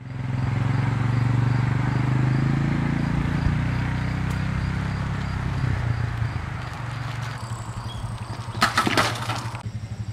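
A steady low rumble with a fine, even pulse. About nine seconds in comes a short metallic clatter, a bicycle dropped onto an asphalt driveway.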